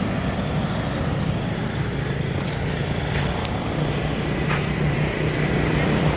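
Steady low mechanical hum over a background of noise, with a few faint clicks.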